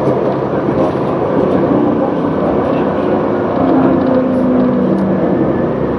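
CAF Urbos 3 light rail vehicle running on its track, heard from inside the car: a steady rumble of wheels and running gear with a low electric hum that steps down in pitch as the tram slows for a stop.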